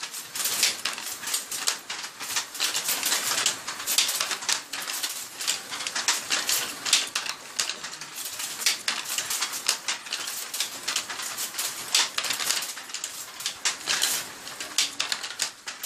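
Wooden handloom clattering as Dhaka cloth is woven: frequent irregular clicks and knocks of the loom's moving parts being worked by hand.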